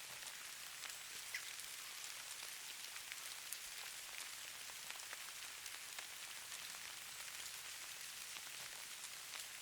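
Falling snow pattering on surfaces: a steady soft hiss with scattered light ticks.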